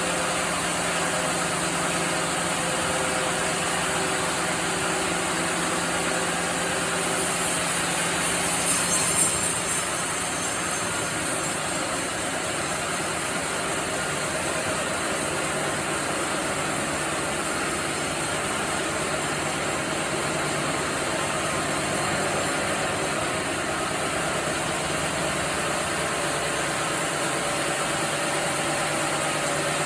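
Sawmill machinery running with a steady mechanical drone, joined by a brief high hiss about seven to nine seconds in.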